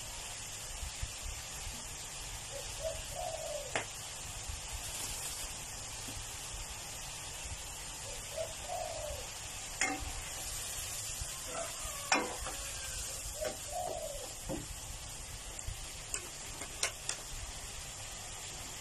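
Fish pieces and chili paste simmering in water in a wok with a steady sizzling bubble, and a spatula stirring, knocking against the pan a few times. A dove coos in the background about every five seconds.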